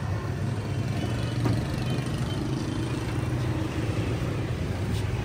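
A steady low engine hum, like an engine idling, with a couple of faint clicks.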